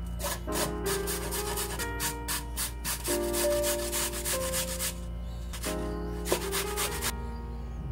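Carrot being grated on a metal box grater, quick rasping strokes at about four to five a second, with a short break about five seconds in before a few more strokes. Background music plays underneath.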